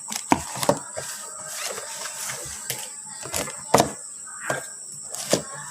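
A small cardboard box and its plastic packaging being opened and handled: a run of irregular clicks, taps and rustles, the sharpest just before four seconds in.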